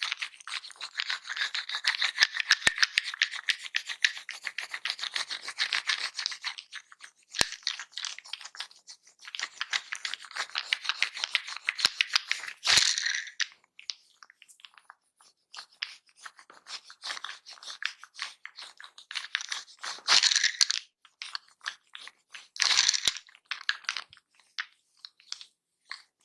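Close-miked massage sounds: a barber's hands rubbing and scratching through hair and over skin, heard as dense fast crackling in long spells. It thins out to scattered scratches in the second half, with a few louder rasps.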